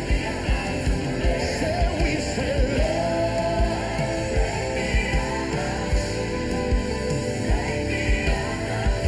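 Live worship band music: a steady drum beat of about two to three strokes a second under sung melodic lines and band instruments.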